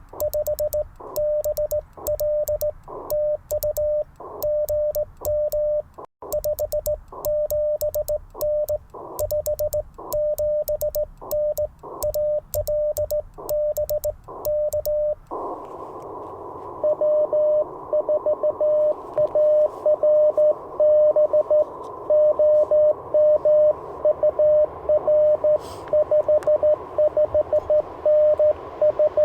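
Morse code on a single steady tone from an Icom IC-705 transceiver: for the first fifteen seconds it is the sidetone of hand-sent code on an N3ZN sideswiper (cootie) key, with the key's contacts clicking on each element. Then band hiss opens up and another station's Morse code comes in through the receiver, without clicks.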